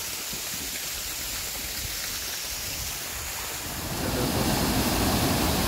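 A steady quiet hiss, then about four seconds in the much louder, even rush of a waterfall that the heavy rain has brought out, water pouring down a hillside channel.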